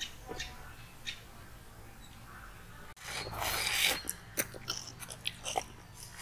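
Several people eating homemade ice lollies. About three seconds in comes a second of loud, noisy slurping, then a string of short, sharp sucking and biting smacks.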